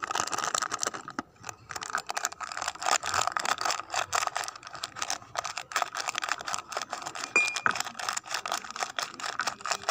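Glasses, bottles and utensils clinking and scraping continuously as jamu is prepared, with a short ringing note about seven seconds in.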